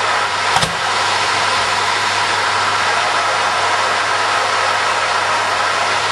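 Homemade jet engine built from a car turbocharger running at low power: a loud, steady rushing noise with a steady high tone through it. A single sharp pop about half a second in.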